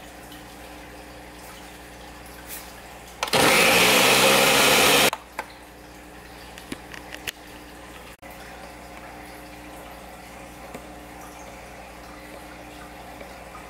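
A Ninja Professional 1100-watt countertop blender runs in one short burst of about two seconds, blending curd, milk, powdered milk and butter into homemade heavy cream. A few light clicks follow.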